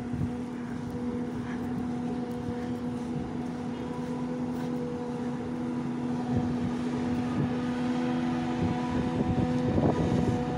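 Engine of a heavy farm machine at work in silage harvesting, running at a steady speed with an even-pitched drone, and a few knocks and a rougher patch near the end.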